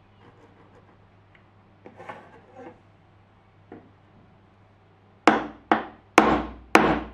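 A wide wood chisel chopping into a plywood part: five sharp strokes about half a second apart in the last two seconds. Earlier there is a faint pencil scratching as a line is marked.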